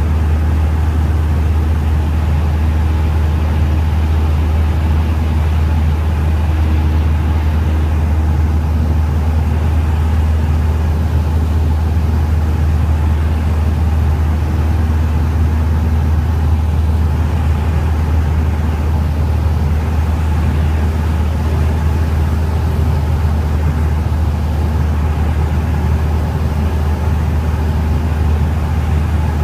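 Cessna 172's piston engine and propeller droning steadily, heard inside the cabin.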